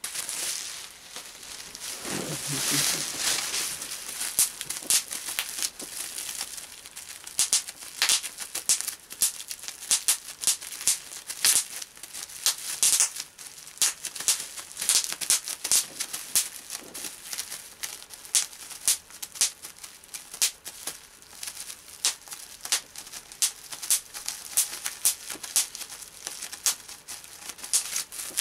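Plastic bubble wrap crinkling as it is handled and squeezed, with many sharp pops of bubbles bursting in quick, irregular succession.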